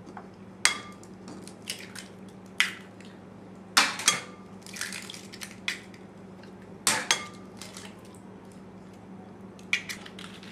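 Three eggs cracked on the rim of a ceramic mixing bowl: a scattered series of sharp taps and cracks.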